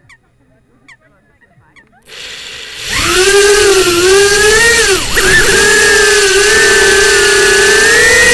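Brushless motors and 2-inch Emax Avan propellers of a small 105 mm FPV quadcopter spinning up for takeoff: after a couple of near-silent seconds with a few faint chirps, a loud whine starts almost three seconds in and holds, its pitch wavering with the throttle, dipping sharply and briefly about five seconds in, then rising slowly near the end.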